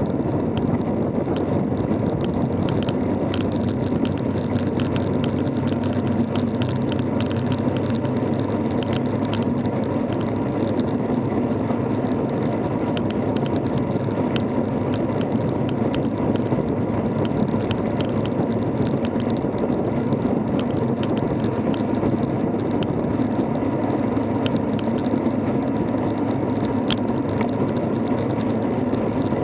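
Steady rush of wind and road noise from riding a road bike, heard through a camera mounted on the bicycle, with scattered light ticks.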